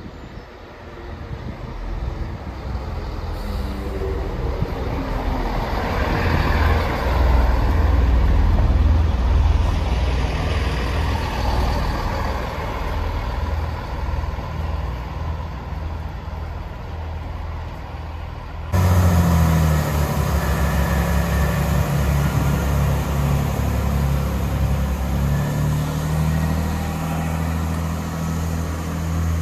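Chiltern Class 165 diesel multiple unit's underfloor diesel engines running as the train draws into the platform, loudest as it passes close and then easing as it slows. About two-thirds of the way in the sound changes abruptly to a steady, deep engine drone as the unit pulls away.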